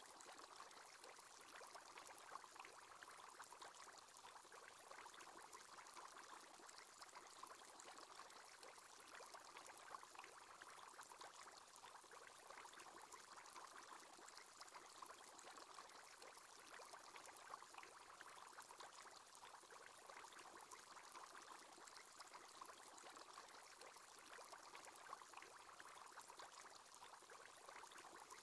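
Faint, steady bubbling water: the bubble sound of an aquarium aerator.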